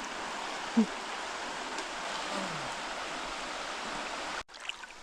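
River water rushing steadily, with a short louder sound about a second in; the rush cuts off suddenly near the end.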